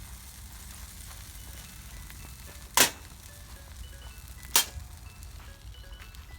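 Two sharp cracks, a little under two seconds apart, over quiet background music of sparse bell-like notes.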